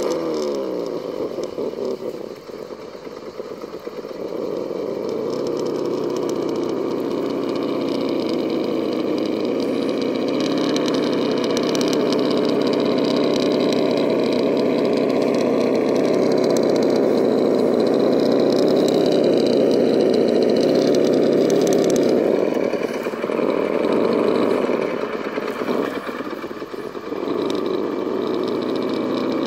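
Vaterra Ascender radio-controlled rock crawler running with a steady engine-like drone while it crawls over a boulder. The sound dips briefly near the start and again a few seconds before the end.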